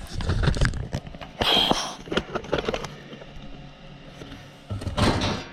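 Handling noise at an open water heater's access panel: a thump, then rustling, scraping and clicking, with two short rushes of noise about a second and a half in and again near the end.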